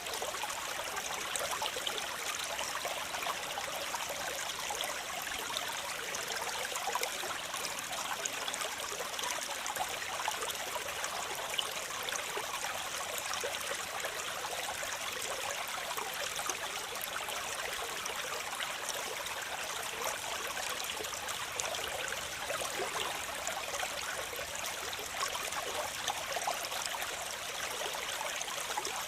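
Waterfall running steadily: an even, bright rush of splashing water with little low rumble and no change throughout.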